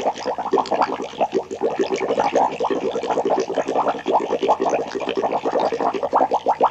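Sci-fi laboratory sound effect: a continuous rapid stream of short electronic blips, many a second, with no pause.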